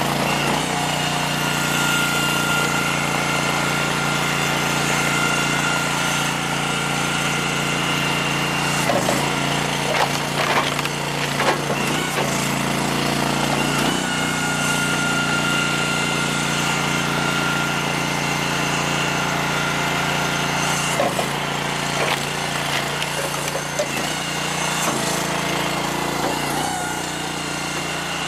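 Hydraulic log splitter's gas engine running steadily, with a high whine that comes and goes as the ram works. Several sharp knocks and cracks from ash rounds splitting and splits dropping onto the conveyor.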